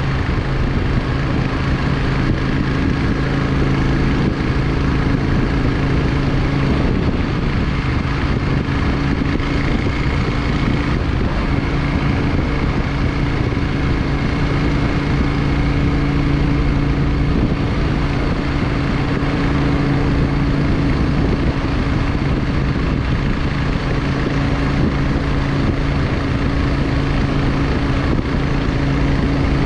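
Yamaha XVS 650 Drag Star's air-cooled V-twin engine running steadily under way, its note wavering briefly about seven seconds in and settling again a few seconds later.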